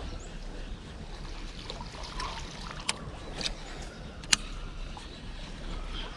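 Handling sounds aboard a fishing kayak: a steady low rumble and faint water noise, with three sharp clicks or knocks a few seconds in, the loudest just past the four-second mark.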